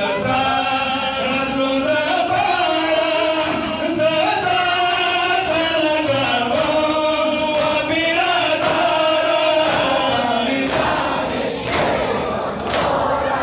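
Men's voices chanting a Pashto noha, a Shia mourning lament, in a slow sung melody. Near the end the chanting gives way to loud chest-beating (sena zani): a few sharp hand slaps on chests, about one a second.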